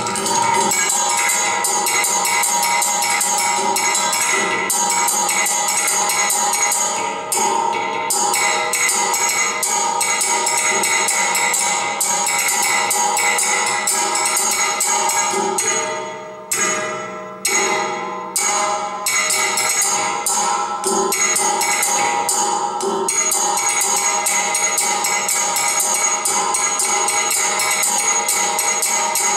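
Bent metal rods of a percussion sculpture struck rapidly with thin sticks: a dense stream of metallic clinks over a steady ringing of several tones. Past the middle the playing thins for a few seconds to single strikes that ring out, then the rapid striking resumes.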